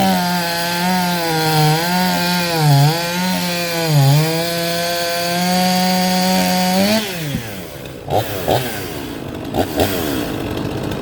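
Stihl two-stroke chainsaw running at high revs, its pitch dipping briefly a few times as if loaded in a cut. About seven seconds in the revs fall away to idle, followed by a few short throttle blips.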